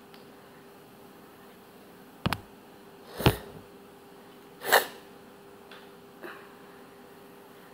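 Rubber erasers flicked with a finger on a tiled surface: a sharp double click about two seconds in, then two louder, short bursts of noise about a second and a half apart.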